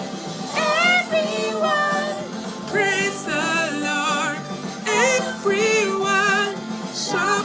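Children's worship song playing: a singing voice holding wavering notes in short phrases over backing music.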